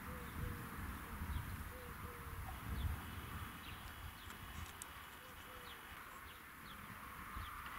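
Gusty wind rumbling on the microphone ahead of an approaching squall line, strongest about one and three seconds in. Small birds chirp over it, and a dove coos with short low notes now and then.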